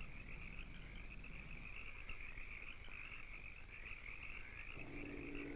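Steady high-pitched trilling of a night-time frog chorus. A low steady hum with several tones joins near the end.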